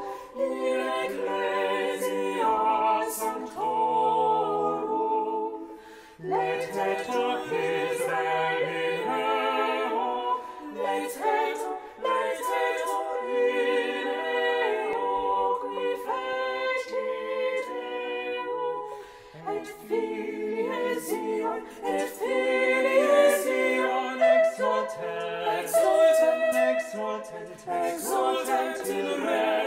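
A small mixed choir singing unaccompanied in harmony, with short breaks between phrases about six seconds in and again near the middle.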